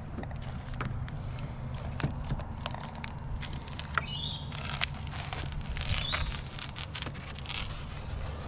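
Self-adhesive D-shape rubber weatherstrip being pulled off a car door seal: crackling, tearing rasps with small clicks and a few short squeaks.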